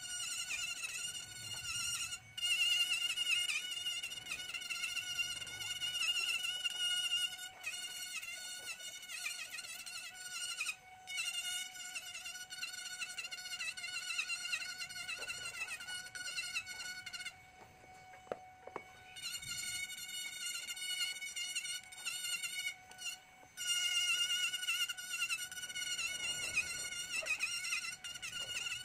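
Handheld electric rotary carving tool whining steadily at high speed as its bit grinds into ngọc am wood. It dips briefly a few times and goes quieter for about two seconds just past halfway.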